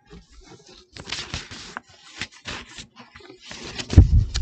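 Pages of a large book on a wooden lectern being turned and pressed flat, the paper rustling and rubbing in several short passes. A heavy low bump about four seconds in is the loudest sound.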